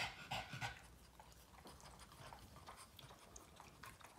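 Boston terrier licking a person's hand and face: several short licking sounds in the first second, then fainter ones.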